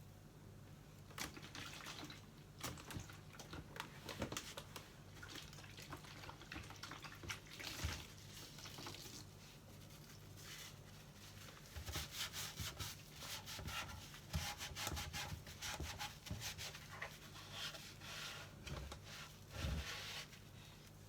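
A tumble dryer's plastic condenser unit being washed by hand with a cloth in warm soapy water: irregular rubbing and wiping, drips and light knocks of the plastic, busier in the second half, over a faint steady low hum.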